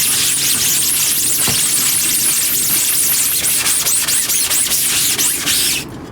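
Scrubbing degreaser into the mesh of a screen-printing screen: a loud, steady scratchy hiss with a repeating back-and-forth sweep, stopping abruptly near the end.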